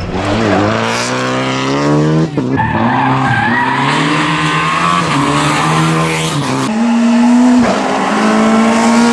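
A rally car's engine at high revs, climbing in pitch with brief breaks at the gear changes about two seconds in and again near seven seconds.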